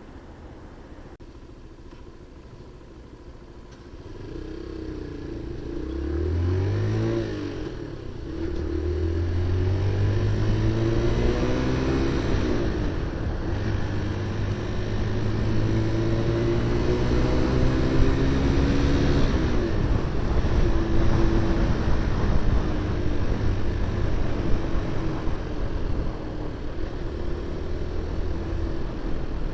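QJ Motor SRV 125 motorcycle engine and exhaust, quiet at first, then accelerating: the engine note climbs, drops at a gear change about seven seconds in, climbs again, and settles into a steady cruise.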